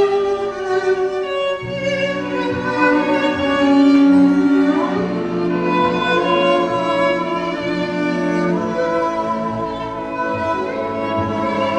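Classical music for bowed strings, violins and cellos holding sustained, layered notes, with one note sliding upward about five seconds in. It is played back over a Bricasti M1 DAC, M28 monoblock amplifiers and Tidal Piano Diacera loudspeakers in a demo room.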